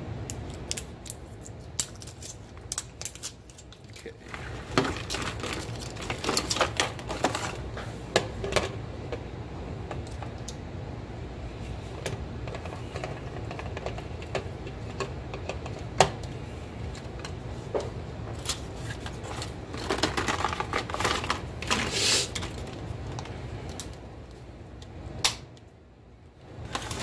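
Plastic clicks, snaps and rustling from handling a handheld digital sound level meter while its battery cover is opened and a 9-volt battery is connected. Two busier stretches of clicking and rustling come about 5 seconds in and again about 20 seconds in. A steady low air-conditioner drone runs underneath.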